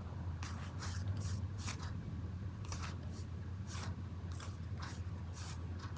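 A deck of oracle cards being shuffled by hand: a string of short papery swishes, one or two a second, over a low steady hum.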